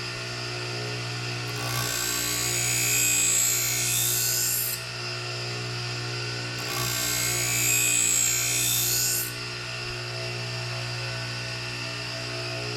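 Steel scissor blades ground on a powered sharpener, in two rasping passes of about three seconds each over the motor's steady hum.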